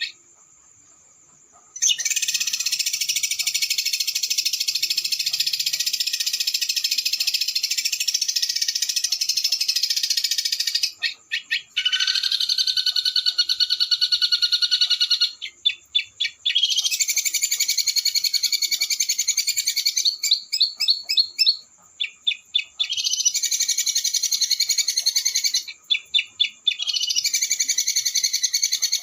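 Small songbird singing a rapid, high-pitched rolling trill in long unbroken runs of several seconds, separated by short breaks and bursts of quick rattling notes. The song starts after a brief silence.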